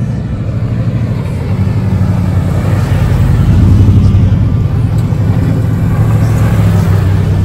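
Toyota Tundra pickup truck driving up a dirt road and passing close by: engine running, with tyre noise on the loose gravel. It grows louder as the truck approaches and is loudest about four seconds in.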